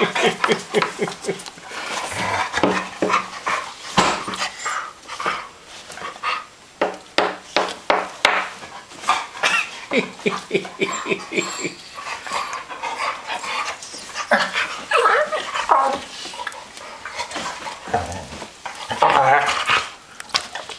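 Dogs at play, making a fast run of short huffs and panting with quick vocal grumbles, and drawn-out whining vocalizations about three-quarters of the way through and again near the end.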